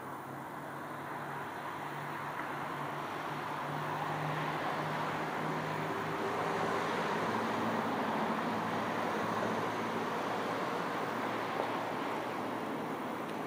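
Road traffic noise from an unseen vehicle: a steady rushing sound with a low engine hum that grows gradually to a peak a little past halfway, then eases off slightly.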